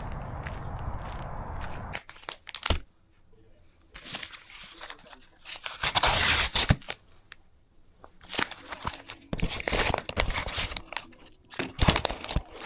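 Plastic packaging crinkling and tearing in irregular bursts, after a steady noise that cuts off about two seconds in.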